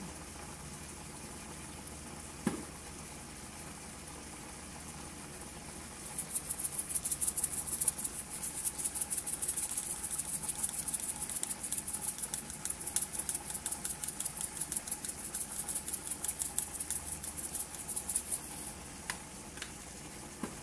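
Shrimp cooking in a frying pan with a soft steady sizzle. About two and a half seconds in there is a single knock. From about six seconds in, a spice shaker jar of chili flakes is shaken over the pan in quick rhythmic strokes for about twelve seconds, the flakes rattling and pattering.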